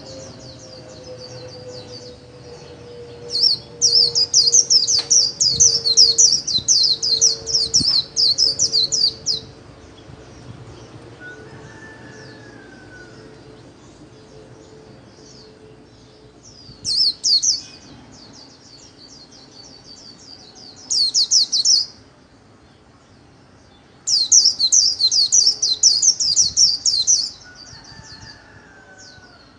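White-eye singing its rapid, high twittering 'líu' song in bursts: a long run of about six seconds, two short bursts, then another run of about three seconds near the end.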